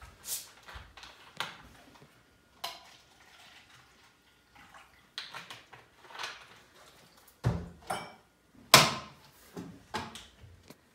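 Drinkware being handled and set down on a bar counter: scattered clinks and knocks, with a low thump about seven and a half seconds in and a sharp knock just before nine seconds, the loudest.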